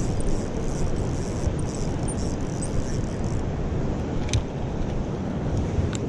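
Shallow river rapids rushing over rocks, a steady wash of water noise, with a single sharp click about four seconds in.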